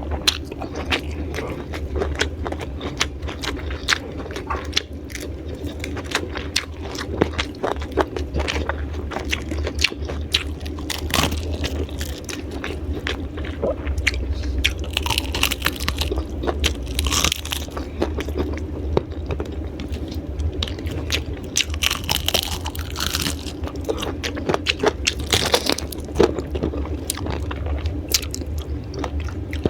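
Close-up crunching and chewing of raw vegetables (lalapan), a run of sharp crisp bites and mouth sounds, over a steady low hum.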